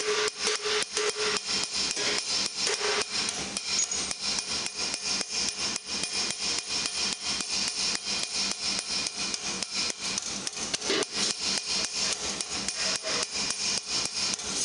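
A hand hammer strikes hot steel on a steel stake in rapid, even blows, several a second, as a gauntlet cuff is forged. Each blow gives a metallic clang, with a ringing tone that fades after the first few seconds.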